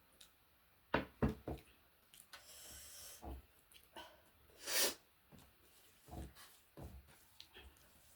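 Close-miked eating sounds: a quick run of three sharp crunches about a second in, then softer chewing and mouth noises with a louder whooshing noise near the middle.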